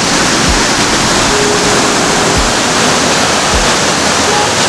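Waterfall on a creek rushing loudly and steadily, with a few low thumps scattered through it.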